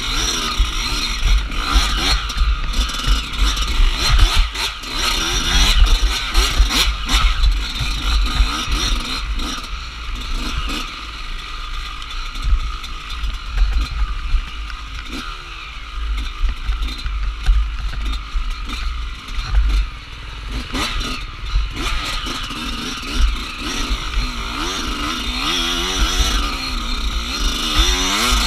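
Enduro dirt bike engine revving up and down as the bike is ridden over a rough, bumpy trail, the pitch rising and falling again and again. Wind buffets the on-bike microphone, and the bike knocks and rattles over bumps.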